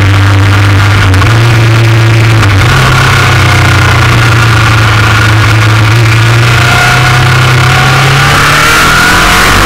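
Motorcycle engine running under way, loud. Its note steps up twice in the first three seconds, holds steady, then climbs again near the end as the throttle opens.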